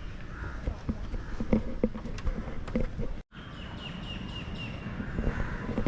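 Outdoor bird sounds: a few scattered knocks in the first half, then after an abrupt cut a bird gives a quick series of repeated high notes over a softer warbling call.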